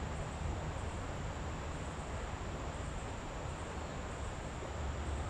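Steady rush of a swollen creek's flowing water, with a low rumble underneath and no distinct events.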